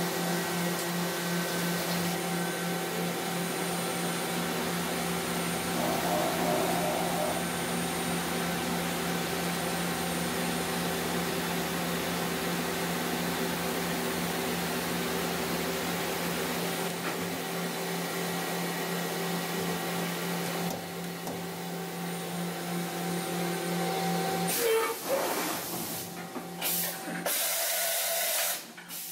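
Mazak Nexus HCN-6000-II horizontal machining center running: a steady mechanical hum with several fixed tones over hiss. About 25 seconds in the hum stops, and a few sharp clunks and a burst of air hiss follow as a tool is loaded into the spindle.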